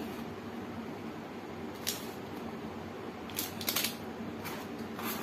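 A few light clicks and taps of plastic tyre puncture repair tools and a packet of plug strips being handled, with a small cluster of clicks about three and a half seconds in, over a steady low background noise.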